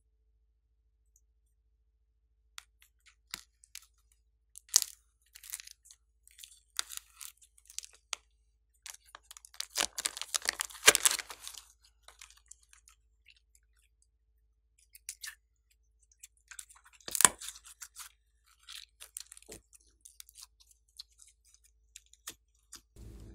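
Glossy slime being squeezed and kneaded by hand, making sticky crackling and popping sounds in irregular bursts. It is loudest for a couple of seconds about ten seconds in and again briefly near seventeen seconds.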